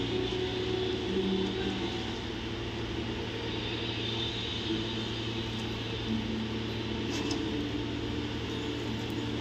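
A steady low hum under an even hiss of background noise, with a faint click about seven seconds in.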